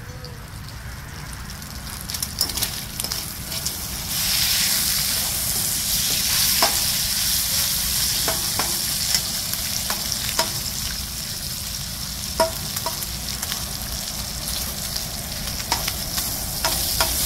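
Bacon sizzling as it fries in a stainless steel pan, the sizzle growing louder about four seconds in. Scattered clicks and scrapes come from a metal utensil turning the pieces in the pan.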